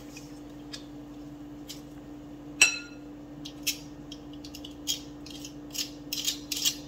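Hand-held garlic press being worked and scraped clean over a glass mixing bowl: scattered short clicks and scrapes about once a second, one sharper ringing clink about two and a half seconds in, and quicker scraping near the end.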